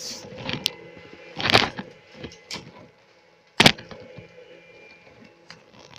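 Dry palm fronds rustling and snapping as someone pushes through them: a rustling rush about a second and a half in and one loud sharp crack past three and a half seconds, over a faint steady electronic whine.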